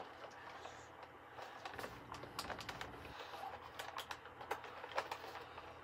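Faint, irregular clicks and light taps, several a second, from hands handling a plastic animatronic toy and its packaging.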